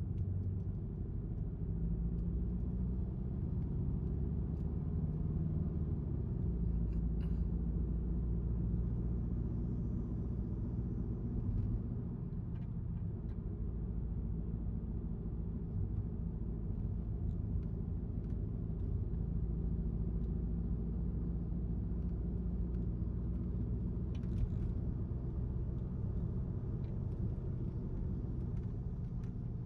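Car driving: a steady low rumble of engine and road noise, with the engine note rising and falling gently. A few faint clicks come through, the clearest about 24 seconds in.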